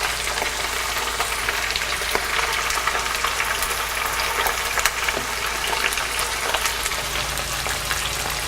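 Flour-and-egg-coated chicken pieces deep-frying in hot oil: a steady sizzle dotted with quick crackles and pops.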